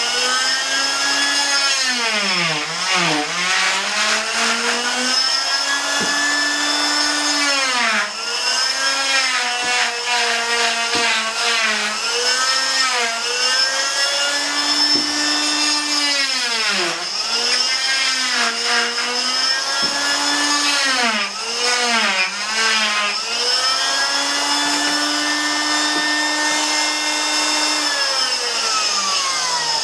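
Electric oscillating cast saw running with a steady whine, its pitch dipping again and again as the blade is loaded cutting through the cast at the toe end. Near the end it is switched off and winds down with a falling whine.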